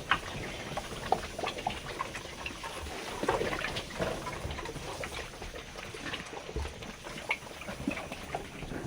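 Pigs grunting at irregular intervals, with scattered knocks and clicks.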